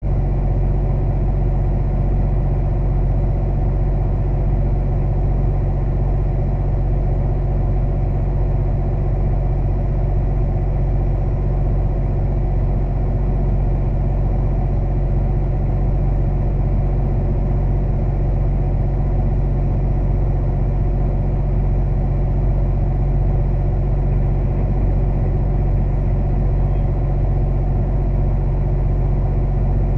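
Semi-truck diesel engine idling with a steady, unchanging low drone.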